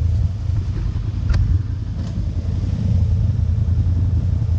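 ATV engine running with a steady low rumble, and a single sharp click a little over a second in.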